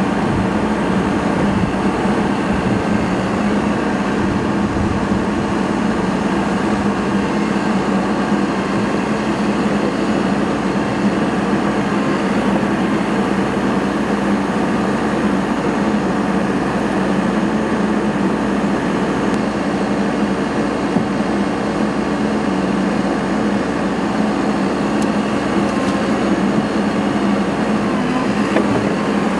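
Backhoe loader's diesel engine running steadily at one even pitch while the machine works a floating dock section into the water.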